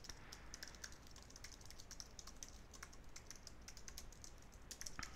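Faint typing on a computer keyboard: an irregular run of quick keystrokes, a little louder near the end.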